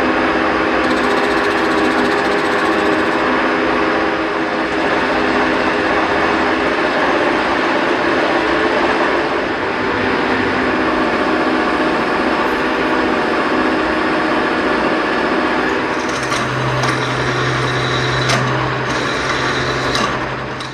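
Monarch 10EE lathe running steadily with many even tones, while a drill held in the tailstock is fed into the spinning billet. About sixteen seconds in a low hum joins, with a few sharp clicks, and the sound drops off suddenly at the end.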